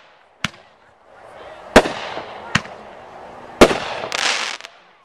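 Samurai multi-shot firework cake firing shells in the air: sharp bangs, the two loudest about two and three and a half seconds in, each followed by about a second of hissing noise, with two lighter pops between.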